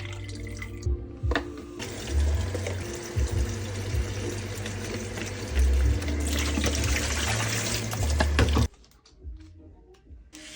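Tap water running hard into a kitchen sink, cut off abruptly near the end, with background music.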